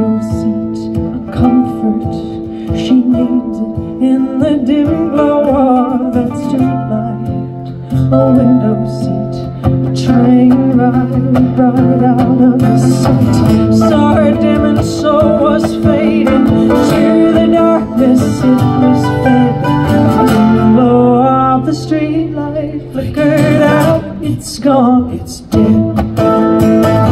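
An acoustic duo playing a country-folk song: mandolin and acoustic guitar picked and strummed, with a woman singing for part of it.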